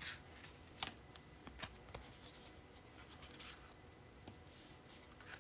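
Faint handling of cardstock: a few light ticks and taps as paper pieces are picked up and set down, and a soft rustle of card sliding in the middle.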